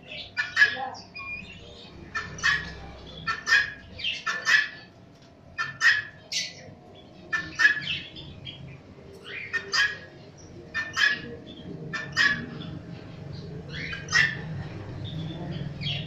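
Small dabbling ducks calling: a long series of short, harsh calls, often two in quick succession, over a faint low hum.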